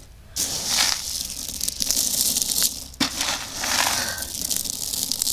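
A hand stirring through a bin of dry pigeon corn mix, the peas and seeds rustling and shifting against each other. It starts about half a second in, with a short break and a click near three seconds in.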